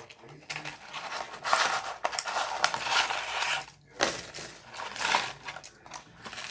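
Close-up crunching and crackling from chewing a crispy fried chicken sandwich, in two stretches with a brief pause near the middle.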